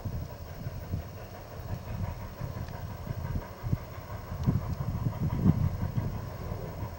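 AT&SF 3751, a 4-8-4 steam locomotive, running past with its train, heard as a low, uneven rumble that swells a little about five seconds in.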